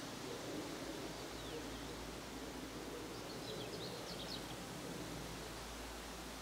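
Wind blowing in a steady rush, with a low rumble of wind on the microphone. A few faint, high bird chirps come in the middle.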